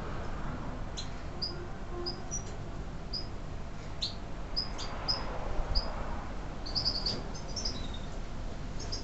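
European goldfinches of the large 'major' race calling: short, high chirps scattered every half second or so, with a quicker run of notes about seven seconds in, over a low steady rumble.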